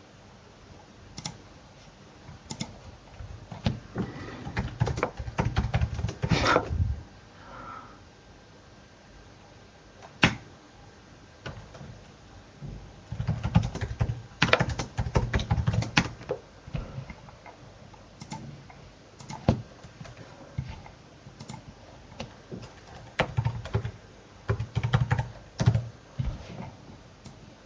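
Computer keyboard typing in three runs of rapid keystrokes, with single key or button clicks between them.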